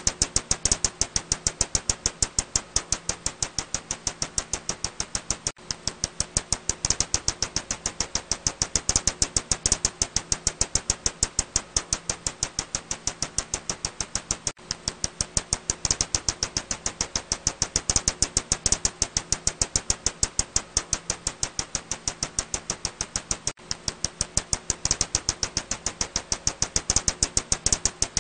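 Ussuri bat's echolocation calls, made audible by a bat-detector recording: a fast, very regular train of sharp clicks, about seven a second, over a faint steady hum, with a short break about every nine seconds.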